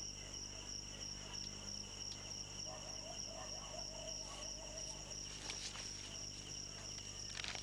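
Crickets chirring steadily in the background, a constant high trill. A few faint clicks come near the end.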